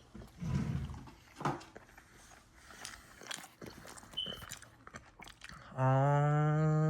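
A person chewing and biting into fast food, with small crunches and mouth sounds, then near the end a loud, steady hummed "mmm" lasting about a second.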